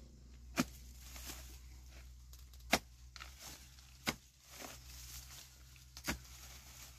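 Four sharp knocks, about one every one and a half to two seconds, with fainter taps between.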